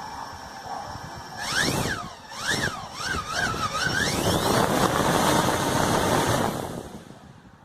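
A small motor revving up and down several times, its whine swooping up and down in pitch, then running with a loud rushing noise that fades away near the end.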